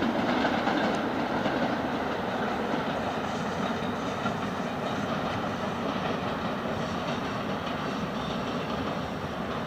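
Berlin S-Bahn electric train running along the elevated line, a steady rolling noise of wheels on rails that is loudest in the first second or so and eases slightly toward the end.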